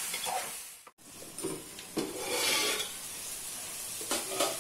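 A metal spatula stirring bottle gourd pieces and masala frying in an aluminium pot, with sizzling and scrapes and clinks of metal on the pot. The sound cuts out abruptly about a second in, then the sizzling and clinks resume.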